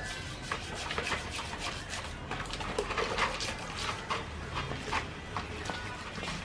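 Hands scrubbing coarse salt over the wet, scaled skin of a whole raw fish in a basin to clean it: a run of irregular gritty scrapes and small wet clicks.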